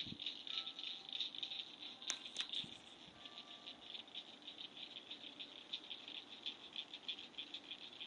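A chorus of insects chirping in a fast, steady pulsing buzz, with a couple of sharp clicks about two seconds in.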